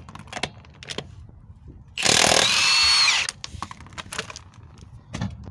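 Cordless impact wrench spinning a loosened lug nut off a truck wheel: one run of about a second and a half that winds down in pitch as it stops, with a few light clicks of the socket and nut around it.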